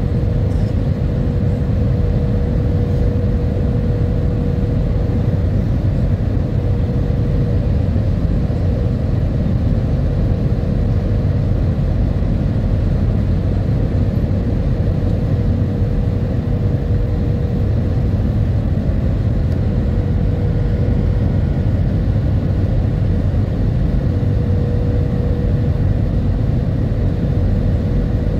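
Airliner cabin noise heard from a window seat: the steady low rumble of the jet engines and rushing air, with a thin steady hum-like tone running through it.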